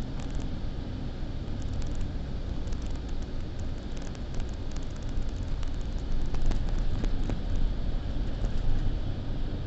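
Steady low rumble of a car driving, with road and wind noise heard from inside the vehicle.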